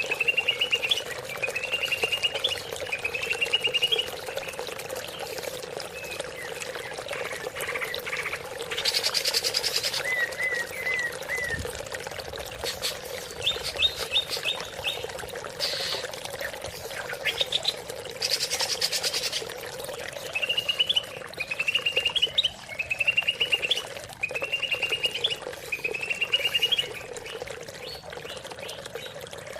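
Cucak ijo (green leafbird) singing over steadily trickling water. It sings repeated short rising trilled phrases about a second long; twice there is a harsh buzzy burst, and in the middle there are quick clicking and chipping notes.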